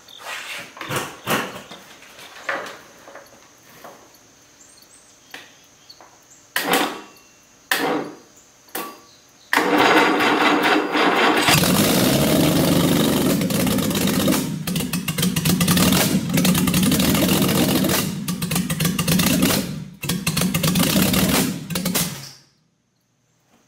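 Jaguar 2.4 litre straight-six being started on a stand for the first time after a rebuild. After several brief bursts, it is cranked and catches about ten seconds in. It runs rough and unmuffled for about ten seconds with sharp pops, then cuts off suddenly. The pops are one cylinder backfiring, which the builders put down to the ignition timing being off.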